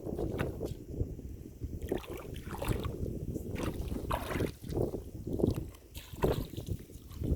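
River water splashing and sloshing in irregular strokes, with wind rumbling on the microphone.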